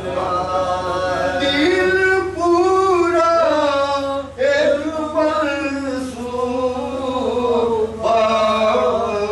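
A man chanting an Urdu salaam, a devotional poem sung as a melodic recitation, with long held notes that slide up and down between phrases.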